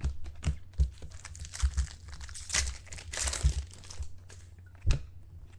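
A trading-card pack being torn open and its wrapper crinkled, with cards handled and clicking against each other. The crinkling is thickest about halfway through, and a sharp tap comes near the end.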